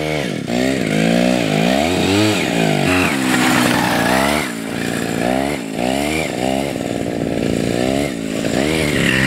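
Small two-stroke chainsaw engine of a homemade snowmobile revving up and down over and over as the rider works the throttle.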